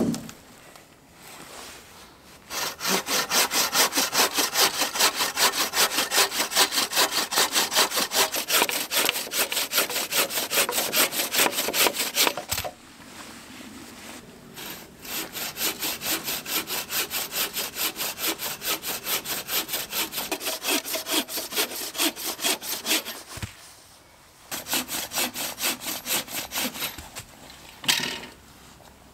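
Wooden-framed bow saw cutting through a log in fast, even back-and-forth strokes. There are two long bouts of sawing: the first stops about twelve seconds in, and the second starts a couple of seconds later. A short burst of strokes comes near the end.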